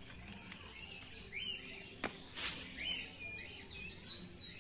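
Small birds chirping in quick, repeated short notes. About two seconds in there is a sharp click, then a brief scrape, as the cam chain tensioner is drawn out of the engine cylinder.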